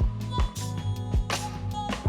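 Background music: a funk-style instrumental with bass, guitar and a steady drum beat.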